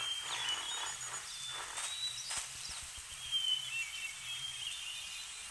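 Outdoor nature ambience: a steady background hiss with faint, high bird chirps and short whistles scattered through it.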